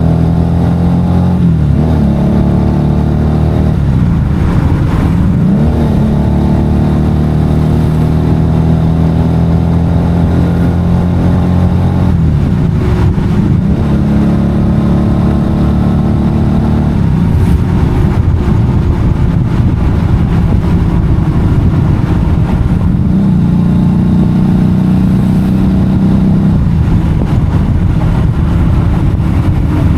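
FKM Victorino 250i motorcycle engine running under way, with a steady note that drops and climbs in pitch several times as the gears are changed.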